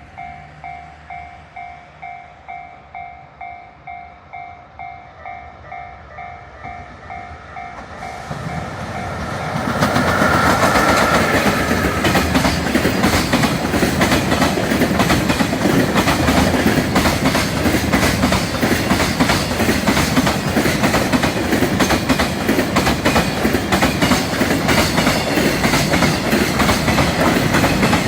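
Level-crossing warning bell ringing in a steady two-pitch ding, about two strokes a second. From about eight seconds in, a freight train hauled by an EF66 electric locomotive comes up and drowns the bell. From about ten seconds the train passes close by, loud and continuous, with rapid clickety-clack of wheels over the rail joints.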